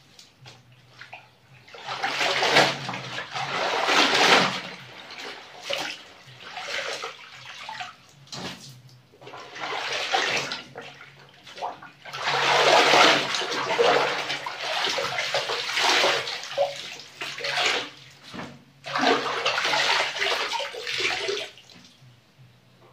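Soapy water sloshing and splashing in a plastic washtub as clothes are scrubbed and wrung by hand and lifted out, water streaming off them. It comes in uneven bursts after a quiet first couple of seconds.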